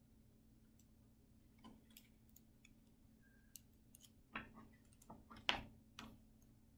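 Soft clicks and rustles of a picture book being handled and a page turned, bunched in the second half over near silence.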